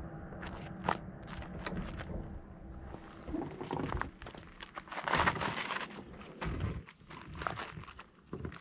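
Footsteps and scuffing in dirt and dry brush as a loaded fishing kayak is hauled down a bank, with scattered knocks and scrapes from the kayak. The loudest rustling scrape comes about five seconds in, over a low steady hum in the first few seconds.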